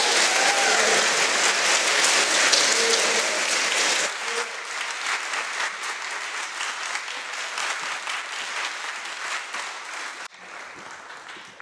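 Church congregation applauding: dense clapping, loudest for the first four seconds, then thinning out and fading away near the end.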